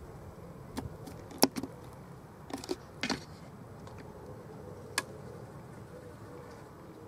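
A few scattered sharp knocks and clicks over a steady low background, the loudest about a second and a half in.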